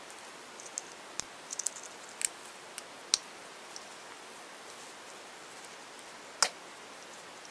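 Small plastic clicks and taps from tiny toy-car pieces being handled and pressed together, several in quick succession over the first three seconds and one sharper click near the end, over a steady faint hiss.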